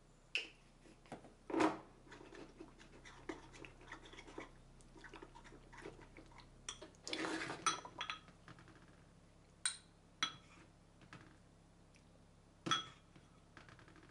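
A metal spoon stirs and scrapes a thick cream cheese mixture in a cut-glass bowl. A knock about a second and a half in and a few ringing clinks near the end come from the spoon striking the glass bowl and a small dish.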